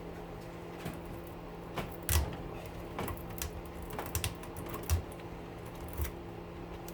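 Irregular metal knocks and taps as tools work at a scrap motor rotor to get the copper pieces out, which are stuck and not coming out well. A steady low hum runs underneath.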